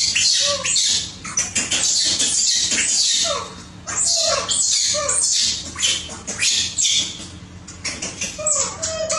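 Young pet macaques giving short harsh screeches one after another, with brief whimpering calls between them: begging cries of monkeys excited for their food. The screeching is densest in the first three seconds and again from about four to seven seconds in.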